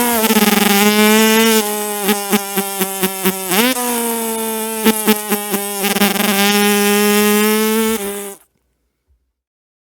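A man imitating an engine with his voice: a steady, buzzing drone that breaks into a run of quick choppy pulses with a short upward swoop in pitch partway through, then settles back into the steady drone before cutting off abruptly.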